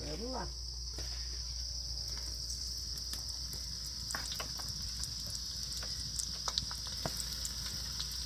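Breaded fish pieces sizzling in pork lard, with scattered sharp pops. The lard is not yet fully hot. A steady high-pitched insect chorus runs throughout.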